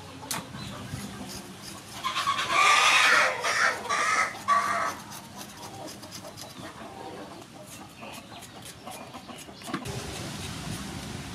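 A chicken calls loudly in three parts, about two seconds in, lasting about three seconds. Faint short scraping ticks come from a blade peeling fresh ginger root.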